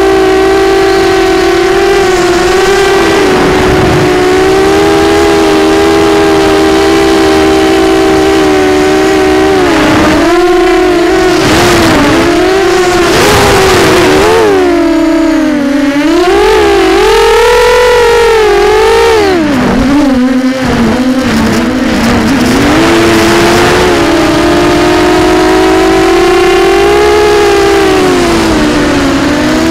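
Four Sunnysky 2204 2300KV brushless motors spinning Gemfan 6045 props on a homemade 250-size quadcopter, a loud whine heard from the onboard camera. The pitch holds steady at first, swings up and down with the throttle through the middle, then steadies and drops near the end.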